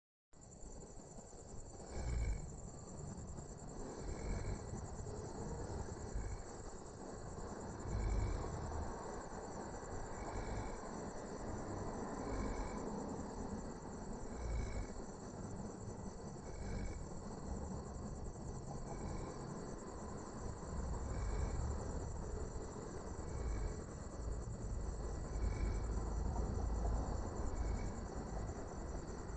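A resting cow snoring, one short snore about every two seconds, over the steady chirping of crickets.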